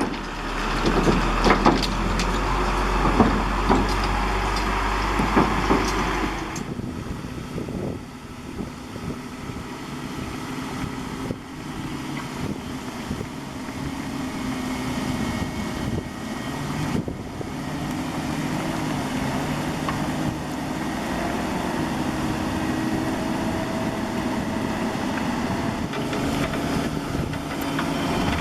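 Diesel engine of heavy digging equipment running, with its note stepping up and down as the load changes. The first six seconds are louder, with a heavy low hum and several sharp knocks; then the sound drops abruptly.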